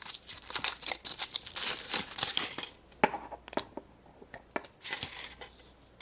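Wrapper of a surprise egg being torn open and crinkled by hand: a dense stretch of tearing and crinkling for the first two and a half seconds, then a few light clicks and a brief rustle near the end.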